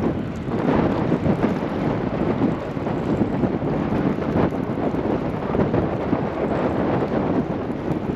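Wind buffeting the microphone: a loud rushing rumble that rises and falls in gusts.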